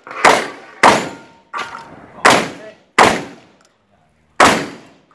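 Shotgun fired in a fast string of about six shots, roughly one every 0.7 s, with a longer pause before the last. The hit steel targets ring briefly after the early shots.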